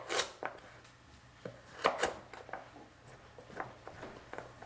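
Kitchen knife cutting a peeled carrot into strips on a plastic cutting board: irregular sharp knocks of the blade reaching the board, loudest near the start and about two seconds in, with fainter taps after.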